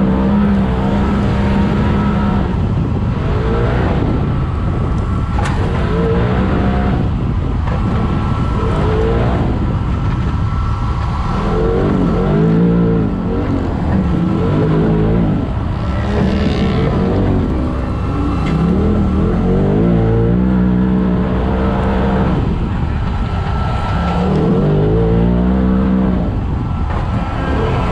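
Side-by-side UTV engines racing, revving up and dropping back again and again as they accelerate and let off.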